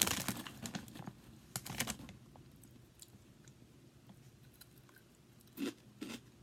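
A person chewing a mouthful of crunchy Chex Mix snack with the mouth near the microphone: a quick run of crisp crunches for about two seconds, then softer chewing, and two more crunches near the end.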